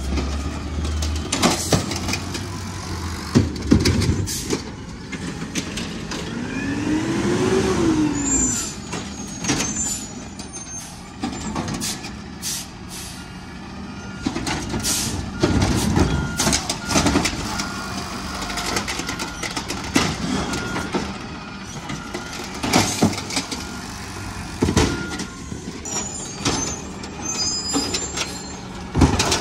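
Automated side-loader garbage truck working: its diesel engine revs up and back down as the hydraulic arm lifts and dumps wheeled carts, with repeated knocks and clanks as the carts are shaken out and set down, and air-brake hisses as it moves between stops.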